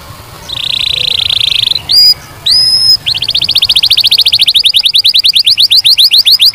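Domestic canary singing. It gives a fast buzzy trill, then two clear rising whistled notes, then a long run of quick repeated sweeping notes at about eight a second.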